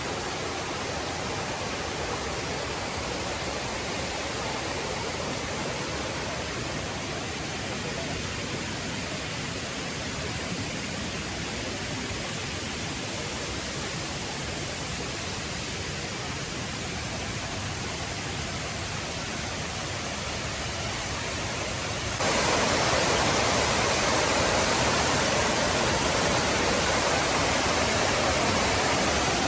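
Fast-flowing jungle river rushing, a steady wash of water noise that steps up suddenly louder about three-quarters of the way through.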